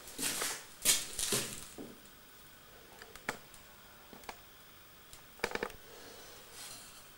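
Handling noises on top of a Supertatramat washing machine: a scraping rattle in the first couple of seconds as the hinged plastic lid of the detergent compartment is lifted, then a few separate sharp plastic clicks, with a quick cluster about five and a half seconds in. The machine itself is not running.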